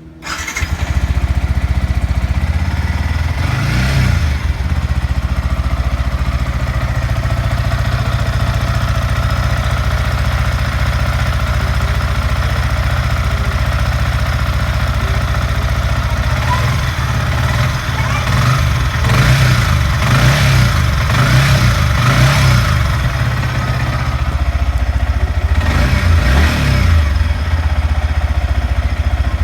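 Yamaha R15 V3's single-cylinder engine running at idle after a new spark plug has been fitted. It comes in suddenly just after the start and is blipped briefly a few times: once early, in a cluster around the middle, and once near the end.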